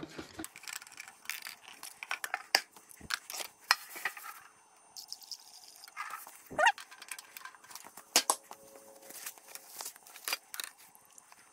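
Scattered clinks, clicks and knocks of paint cans, a metal stir stick and a plastic mixing cup being handled on a workbench while 2K primer and its reducer are measured and mixed.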